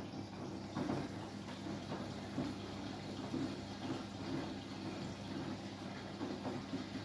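Samsung washing machine mid-cycle: water sloshing and running in the drum in uneven surges over a steady low hum.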